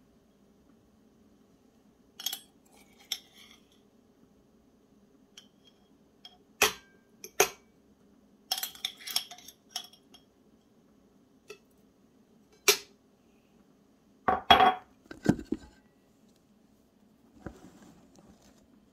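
Metal fork clinking and scraping against a glass jar and a ceramic plate as fried chili in oil is scooped out and served: scattered sharp clinks, with a louder cluster about three-quarters of the way through.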